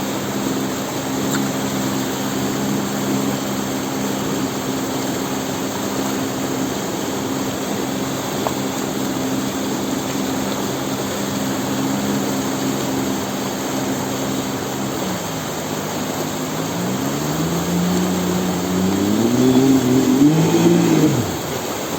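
Outboard motor driving a water-jet unit, running at a steady speed over the rush of water and wind. Near the end it eases off, then revs up over a few seconds before dropping back.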